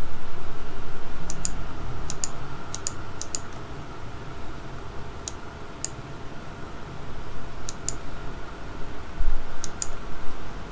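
Keys pressed one at a time on a HyperX Alloy Elite RGB mechanical keyboard with double-shot PBT keycaps: scattered sharp clicks, several in quick pairs, a second or so apart. Under them runs a low rumble that fades over the first few seconds.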